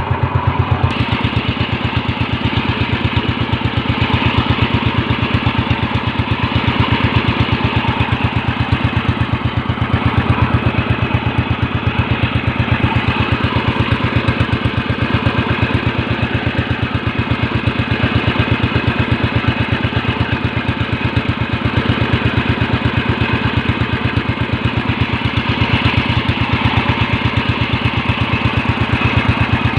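Small fishing boat's engine running steadily, a fast even chugging of firing strokes with a low, constant pitch.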